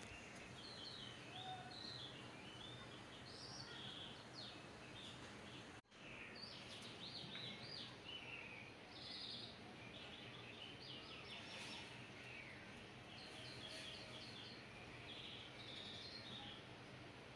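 Faint birds chirping in short twittering runs over a steady low hum and hiss. The sound drops out for an instant about six seconds in.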